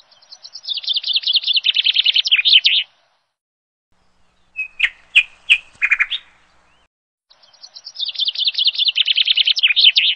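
A bird's chattering call: a fast run of high, sharp notes, about nine a second, lasting nearly three seconds. A few single sharp notes follow in the middle, then the same run comes again near the end.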